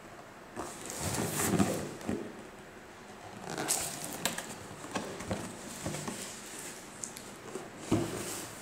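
Cardboard product box being handled and turned over in the hands: irregular rubbing, scraping and light knocks of the carton, loudest about a second in and again near the end.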